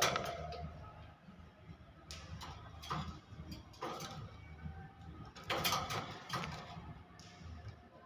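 A caged hill myna's loud held whistle-like call ends under a second in. It is followed by scattered short clicks and knocks from the myna, a few at a time, with a louder group a little past the middle.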